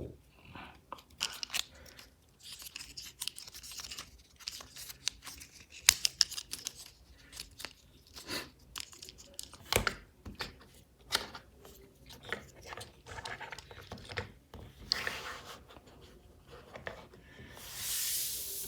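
Plastic transforming toys and their packaging being handled by hand: scattered clicks and snaps with rustling and tearing, and a longer stretch of rustling near the end.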